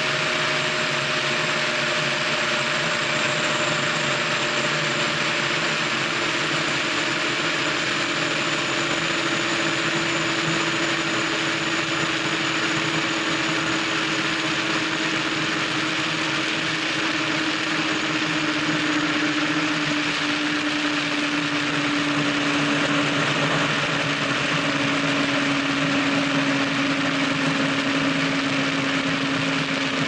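DCB performance boat's engines running at high speed under a dense rush of wind and water, heard from the open cockpit. The engine drone falls slowly in pitch as the boat slows from about 148 to about 104 mph.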